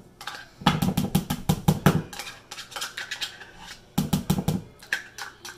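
A spoon scraping and knocking against a measuring cup to get sour cream out into a bowl: two runs of quick clicks and knocks, the first lasting over a second, the second shorter near the end.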